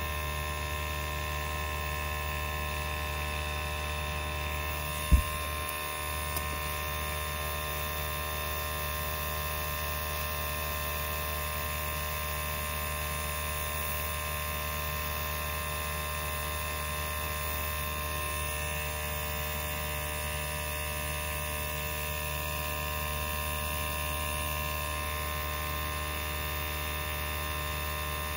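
Steady hum of a small airbrush compressor running, with one sharp knock about five seconds in.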